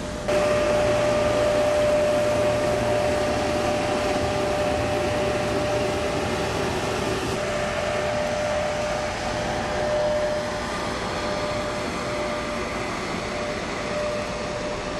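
A motor running steadily: an even whirring noise with a constant whine held at one pitch throughout.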